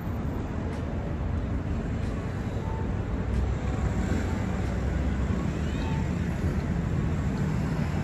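Strong wind buffeting the microphone: a steady, low, noisy rumble with no distinct events.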